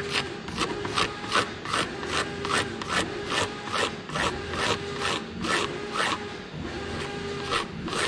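A small blade scraping along a glued split-bamboo rod blank in quick, even strokes, about two to three a second, taking the dried glue off its surface.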